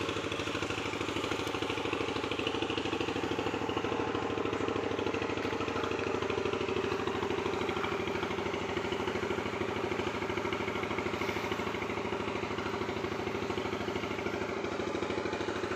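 An engine running steadily at one speed, with a fast, even firing beat.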